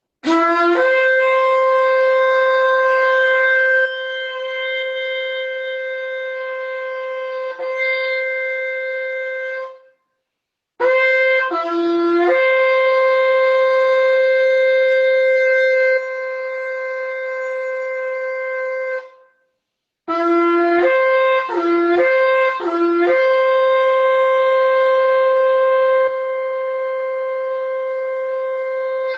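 Shofar blown in three long blasts, each starting with a quick leap from a lower note up to a higher one that is then held steady. The third blast opens with a few short, broken notes before the long hold.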